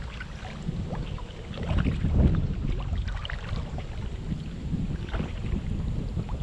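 Water splashing and dripping around a kayak being paddled, in scattered small splashes, over a fluctuating low wind rumble on the microphone that swells about two seconds in.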